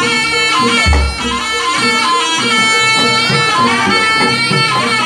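Live jaranan gamelan music: a nasal, shawm-like double-reed slompret plays a winding melody over the ensemble, with a deep low stroke about a second in.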